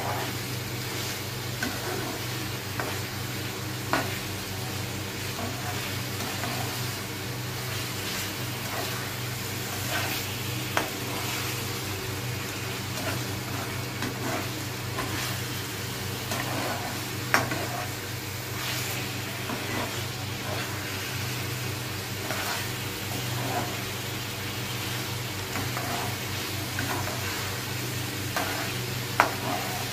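Chicken pieces in gravy sizzling in a frying pan while a slotted metal spatula stirs and turns them, with a few sharp taps of the spatula against the pan. A steady low hum runs underneath.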